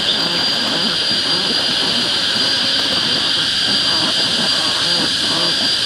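A loud, steady high-pitched hiss with a constant thin whine riding on it, and faint irregular low sounds underneath.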